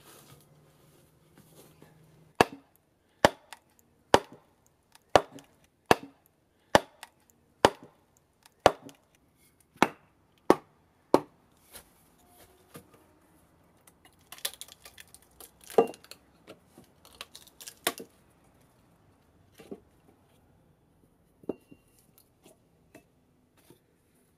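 Wooden mallet striking the back of a froe about once a second, around eleven sharp knocks, driving it into the end of a green walnut log. From about 14 seconds in comes a spell of cracking and tearing as the log's fibres split apart lengthwise.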